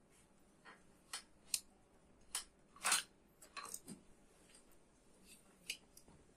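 Small, sharp clicks and taps at irregular intervals, about a dozen, the loudest about three seconds in: small tools and motor parts being handled at a workbench.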